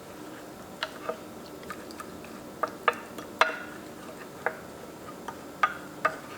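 A spoon stirring a soy-sauce and chili seasoning sauce in a small bowl, clinking against the bowl's side about ten times at irregular intervals.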